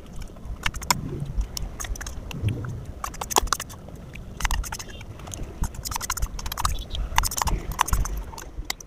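Steel spoon scraping and clinking irregularly against a small stainless steel bowl as the last of the sweet yogurt is scooped out and eaten, with close eating sounds.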